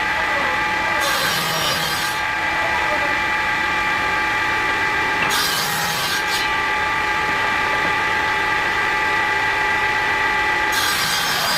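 Woodworking power tool running with a steady motor whine, biting into wood in three short spells of about a second each: near the start, around the middle, and near the end.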